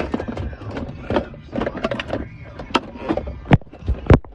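Handling noise from fitting parts into a car dashboard: rustling and clatter, with a few sharp knocks near the end.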